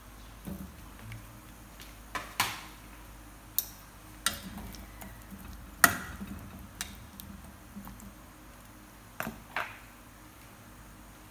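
Chayote pieces and a spatula knocking and clattering against a pot as the vegetables are tipped in and pushed around, about eight separate sharp knocks, the loudest about six seconds in.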